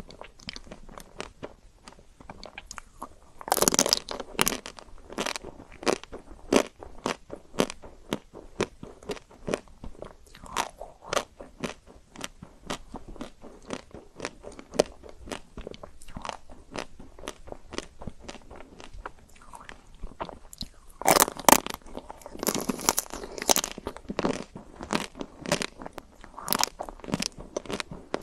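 Close-miked biting and chewing of chocolate-coated ice cream: a steady run of sharp, crackly crunches as the chocolate shell breaks, with two louder, denser spells of crunching, a few seconds in and again about three-quarters of the way through.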